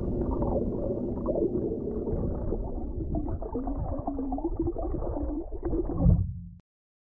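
Muffled underwater sound of river water flowing and gurgling, swelling briefly and then cutting off abruptly near the end.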